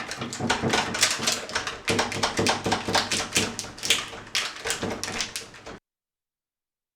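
Rapid clicking and rattling of a door latch being worked open with a thin plastic sheet slipped into the gap to push back the bolt. The sound cuts off suddenly near the end.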